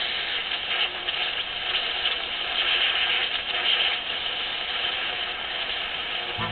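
Shortwave static and hiss from a Ten-Tec 1054 regenerative receiver's speaker as the tuning knob is swept between stations, steady with faint crackle and no station coming through.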